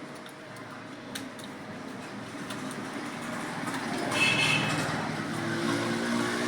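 Computer keyboard being typed on, faint key clicks over a steady background noise. About four seconds in, a louder sound with a high pitched tone rises over it.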